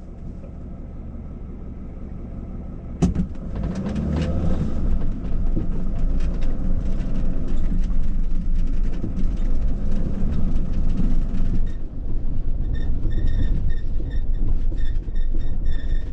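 Mercedes Sprinter 4x4 van driving slowly over a rough, rocky dirt track: a low engine and tyre rumble with knocks and rattles as it bounces. A sharp knock comes about three seconds in, and the rumble gets louder after it. Near the end a short, high beep repeats steadily.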